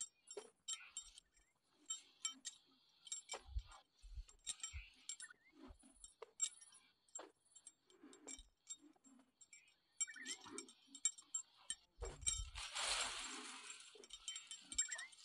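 Faint, irregular small clicks and clinks from someone walking a dirt path. A gust of wind buffets the microphone near the end, with a low rumble.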